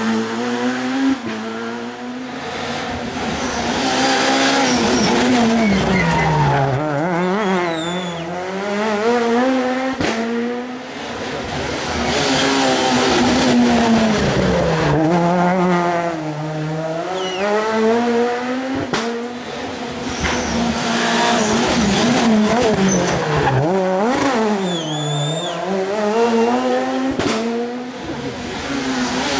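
Super 2000 rally cars, Peugeot 207 S2000 and Abarth Grande Punto S2000, passing one after another through a tight hairpin. Each engine's revs fall as the car brakes and downshifts into the bend, then rise again as it climbs through the gears out of it.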